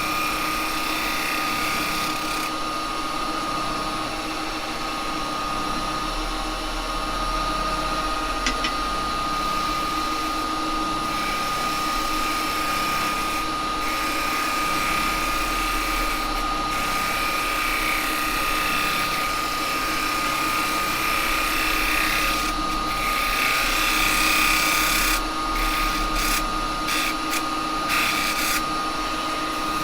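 Wood lathe, an Axminster 1628, spinning a cherry blank with a steady motor whine, while a gouge cuts the wood in passes; the cutting noise swells and drops as each pass goes on and off.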